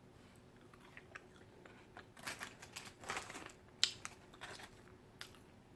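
Close-miked eating sounds: a person chewing and biting food, with irregular crunchy bursts and mouth clicks starting about two seconds in and one sharp click near four seconds.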